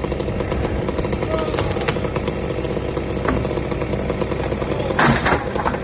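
Two-stroke chainsaw idling steadily, with a brief louder noise near the end.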